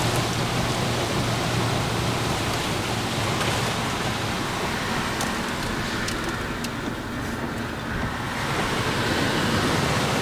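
Truck driving through deep standing floodwater, water spraying and rushing against the body and windshield in a steady wash over a low engine hum. The spray eases a little about two-thirds of the way through, then builds again.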